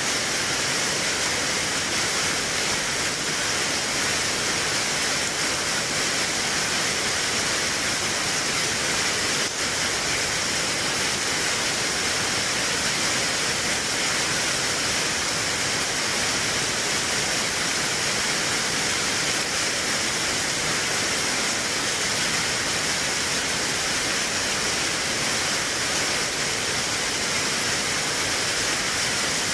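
Steady rain falling through tree leaves: an even, unbroken hiss that holds level throughout.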